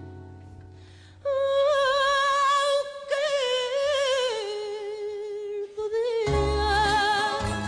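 Fado music with no sung words: a note fades, then about a second in a sustained melody with vibrato starts. Low accompaniment joins it about six seconds in.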